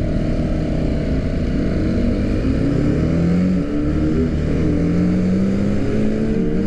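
Single-cylinder sport motorcycle engines pulling through the gears. They dip briefly about three and a half seconds in, then rise steadily in pitch, over a steady rushing hiss. Among them is a Yamaha R15 fitted with an aftermarket air filter, whose louder engine sound the rider is showing off.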